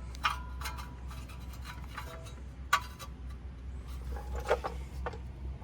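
A few scattered small metallic clicks and knocks as a part is wiggled loose from a truck's brake caliper, over a steady low hum.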